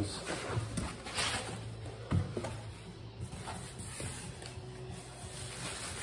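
Cardboard box flaps and plastic wrapping rustling as a packed battery is handled inside its shipping box, with a single knock a little after two seconds in, over a faint steady low hum.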